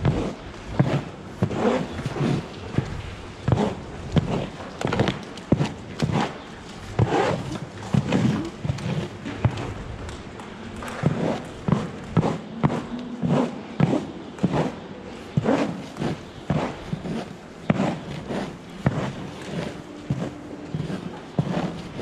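A series of irregular knocks and thuds, one or two a second, with faint low tones in between.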